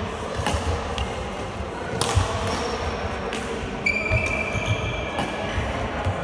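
Badminton rally: several sharp racket strikes on the shuttlecock, thudding footsteps on the hall floor, and a high shoe squeak on the floor lasting about a second, starting about four seconds in.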